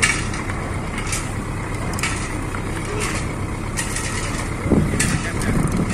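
Cantrang fishing boat's diesel engine running steadily at low speed while the boat comes alongside to moor. Sharp clicks recur about once a second, and the engine noise swells louder about five seconds in.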